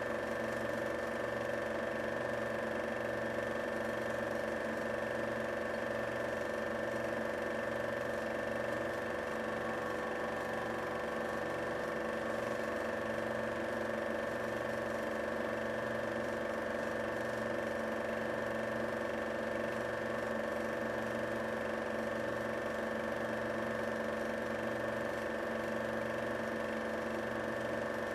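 Film projector running: a steady mechanical whir with a low hum that pulses about once a second.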